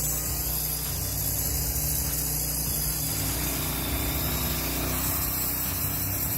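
A log sawmill machine running steadily with a low engine hum. Its sound shifts slightly about five seconds in.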